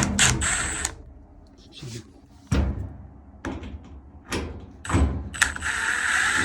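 Sheet-metal dryer panel being worked loose and pulled off: a series of clunks and knocks, with a longer rasping noise near the end. The part is held by a lock that needs lifting before it will come out.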